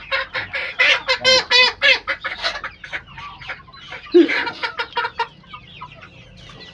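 Domestic village chickens clucking and squawking, many short calls in quick succession, loudest in the first two seconds with another burst about four seconds in. The flock is sick with ngorok, a snoring respiratory illness that makes the birds' calls sound rough.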